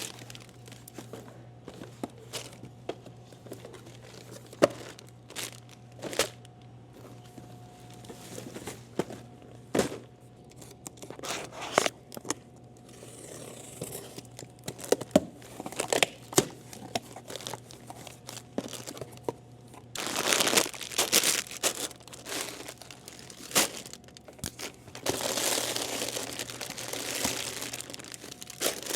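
Plastic-wrapped snack packages crinkling as they are handled, with scattered light knocks and taps; the crinkling gets louder and fuller for a couple of stretches in the second half. A steady low hum runs underneath.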